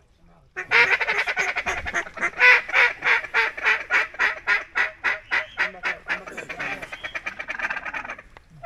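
Duck call blown in a long, loud run of quick quacking notes, about four a second, coming faster near the end.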